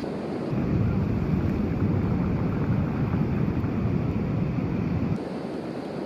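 Wind buffeting the microphone as a low rumble, over the wash of sea surf. The rumble comes up sharply about half a second in and drops away about five seconds in.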